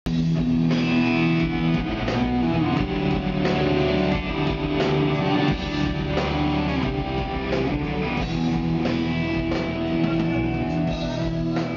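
Live rock band playing: electric guitars over bass and drums, loud through the venue's sound system.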